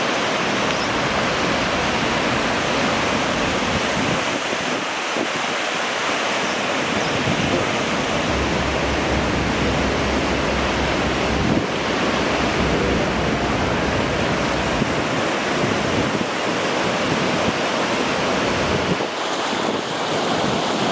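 Loud, steady rushing of water in flood, with wind buffeting the microphone in gusts, strongest about halfway through.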